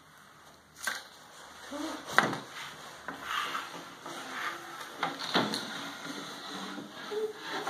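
A child's bentwood armchair scraping and knocking as it is pushed along a wooden floor, with sharp wooden knocks about a second in, around two seconds in and again past five seconds.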